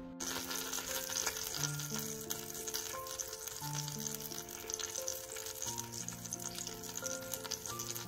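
Cumin seeds, curry leaves and a red chilli sizzling and crackling steadily in hot oil in a pot, with soft background music playing.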